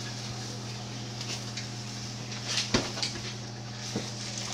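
Sausages sizzling quietly in a frying pan as a spatula turns them, with a few spatula knocks and scrapes against the pan, the loudest near the middle. A steady low hum runs underneath.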